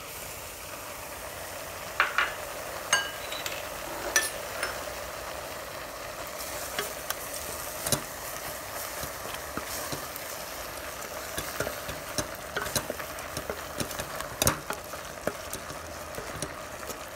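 Capsicum, onion and tomato with masala paste sizzling in an oiled steel pressure cooker while being stirred with a spoon, the spoon knocking and scraping against the pot in irregular clicks over a steady sizzle.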